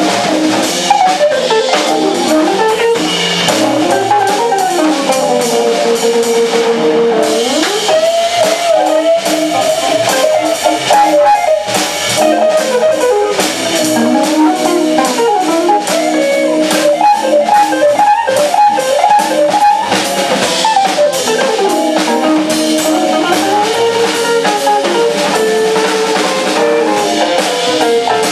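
Live jazz organ trio playing: a semi-hollow electric guitar plays running melodic lines over held organ chords and a drum kit with cymbals.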